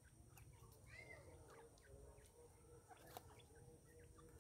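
Grey francolins giving faint, soft short calls and chirps, one rising and falling about a second in, with a few light clicks over a low steady rumble.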